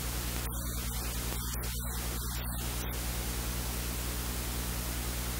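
Steady electrical hiss with a low mains hum, a noisy recording background with no distinct sound event.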